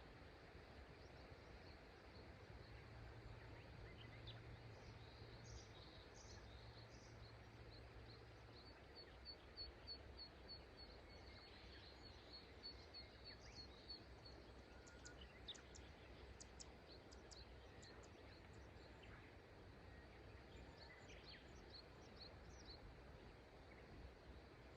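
Faint birdsong over a steady low wash of river water: a run of quick high chirps, about three a second for some five seconds midway, then scattered calls near the end.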